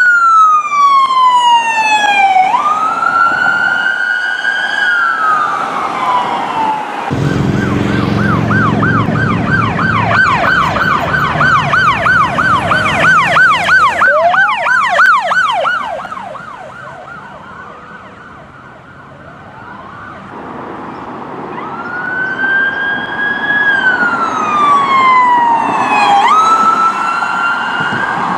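Police SUV electronic sirens. First a slow rising-and-falling wail, then a fast yelp with a loud engine rumble under its start. The yelp fades away, and the wail comes back near the end.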